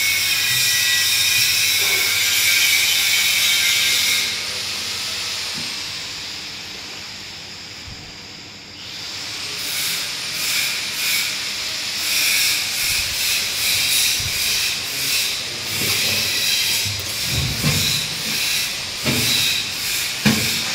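A steady hiss that fades about four seconds in and returns after about nine seconds with an uneven pulsing, with a few low knocks near the end.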